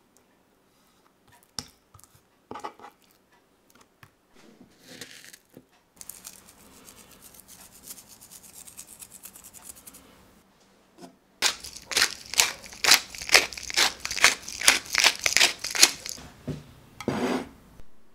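A knife knocks lightly a few times against a wooden chopping board as it slices raw chicken breast, then a hand-twisted spice mill grinds seasoning: a quieter dense crackle first, then a loud run of crunching twists, about three a second, through the second half.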